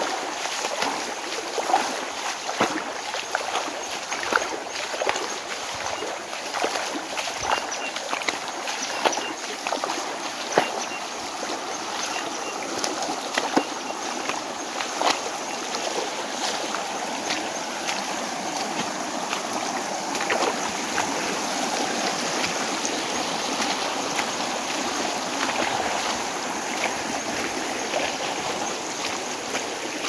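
Muddy rainwater runoff rushing steadily down a stony dirt track, with frequent short splashes and clicks through the first half that thin out later, as the flow grows a little louder and smoother.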